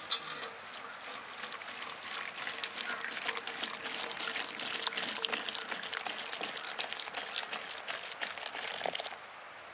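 Beer pouring from glass bottles into a large stainless-steel basin, splashing and fizzing with many small crackles as a thick head of foam builds up. The pouring stops about nine seconds in.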